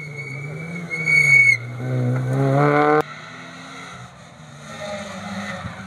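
Rally car: a high, steady squeal, then the engine revving up hard with rising pitch and cutting off abruptly about three seconds in. A lower, quieter engine drone carries on after.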